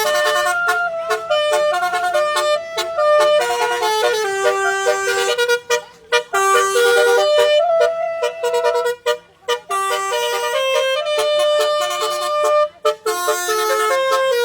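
Basuri telolet horn, a multi-tone vehicle horn, playing a melody as a quick run of stepped horn notes. It breaks off briefly about six, nine and thirteen seconds in.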